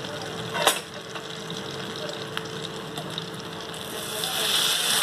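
Butter sizzling and foaming in a steel kadai as whole spices (cinnamon, cloves, cardamom) fry in it, with one sharp click less than a second in. The sizzle grows louder and hissier near the end.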